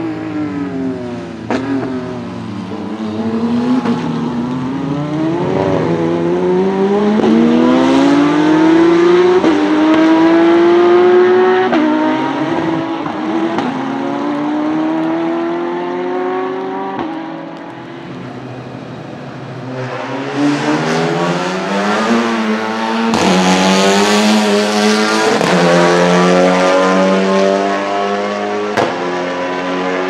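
GT race car engines, among them a Ferrari 488, accelerating hard on a wet circuit, the pitch climbing and dropping sharply at each upshift. From about two-thirds of the way in, more cars come through with a strong hiss of tyre spray over the engines.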